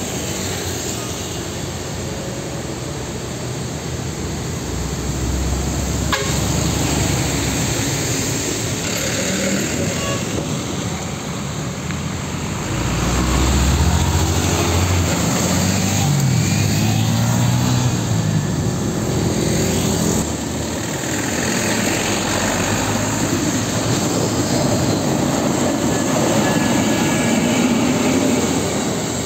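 Trucks and other road traffic driving past. Around the middle, a truck's diesel engine climbs in pitch as it accelerates.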